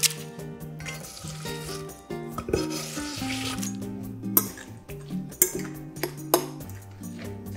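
A fork stirring grated zucchini into beaten egg in a glass bowl: wet rustling with a few sharp clinks of metal on glass. Background music with held notes plays throughout.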